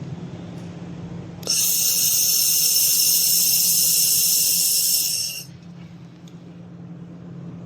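Handheld laser welding and cleaning gun firing: a loud, steady high hiss that starts suddenly about a second and a half in and cuts off about four seconds later, over the machine's steady low hum.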